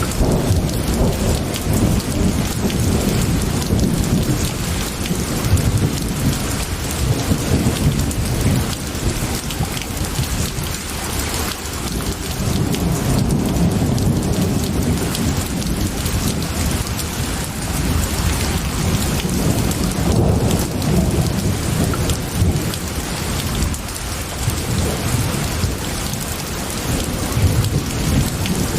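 Steady heavy rain with low rolling thunder rumbles that swell and ease every few seconds.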